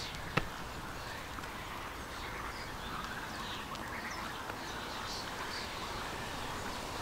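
Mute swan cygnets peeping: many short, high calls in quick succession, with one sharp click about half a second in.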